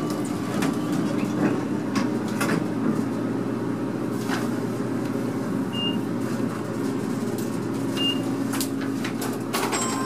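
U.S. Elevator traction elevator car running, heard inside the cab: a steady hum of the moving car with scattered clicks, and two short high beeps about two seconds apart. Near the end a louder rush of noise comes in.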